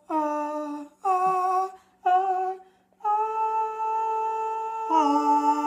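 Women singing a cappella on a wordless vowel: three short notes, then a long held note, with a second voice coming in on a lower harmony near the end.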